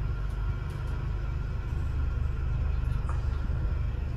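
Steady low rumble of a lift car travelling down, heard from inside the cabin.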